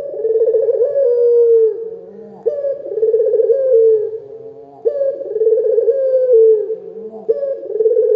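A puter lokal dove calling in a loud, full voice: a low rolling coo repeated about every two and a half seconds, each phrase starting abruptly and wavering down slightly in pitch.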